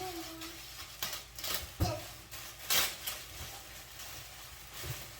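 Packaging being handled and torn open: irregular rustling with several sharper crackles, the loudest about two and three seconds in, after a brief child's voice at the start.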